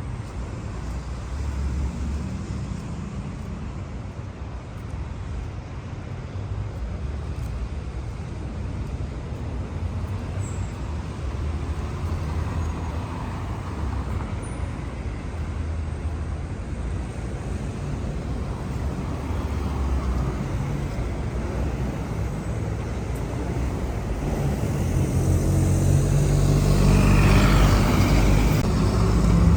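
City street traffic: a steady low rumble of car and bus engines and tyres along a busy avenue, rising near the end as a vehicle passes close by.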